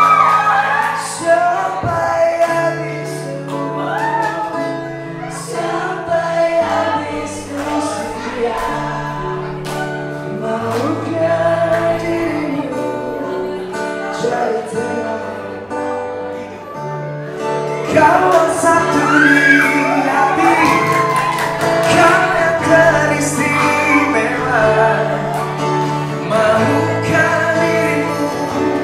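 Live acoustic performance: male vocalists singing into microphones over an acoustic guitar, amplified through a small PA in a large room.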